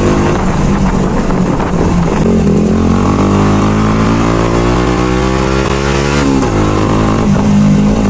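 Motorcycle engine under way, with rushing wind: the revs climb steadily for a few seconds, then drop sharply about six seconds in, as at a gear change, and the engine pulls on again.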